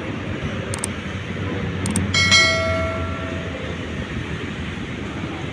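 Subscribe-button animation sound effect: short mouse clicks, then a bright notification-bell ding about two seconds in that rings out for about a second. Under it a steady outdoor rumble of traffic.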